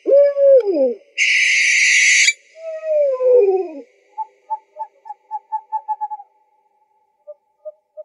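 Owl calls. A wavering call that falls in pitch opens the sequence, followed by a harsh, hissing screech and a second falling call. Then comes a quick run of short toots, about four a second, that stops a little past the middle, with a few scattered toots near the end.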